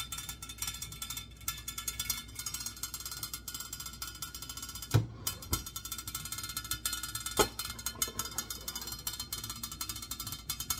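Saladmaster stainless-steel pot's lid valve ticking rapidly and steadily as the water inside boils, the signal that the pot has come up to heat. A few louder knocks come around the middle.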